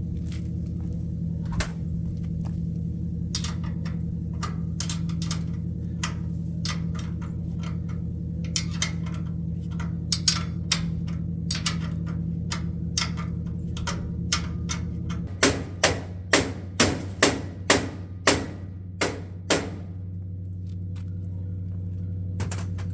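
Hammer blows knocking a chainsaw rack into place on a trailer: scattered taps, then a quick run of about nine strikes roughly half a second apart. A steady low hum runs underneath.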